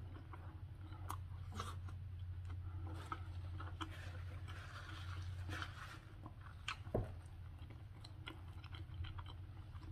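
Close-up mouth sounds of a person chewing a mouthful of beef sausage chili dog in a bun, with small wet clicks. Paper napkin rustling as the hands are wiped about four to six seconds in, and one sharp knock about seven seconds in, over a low steady hum.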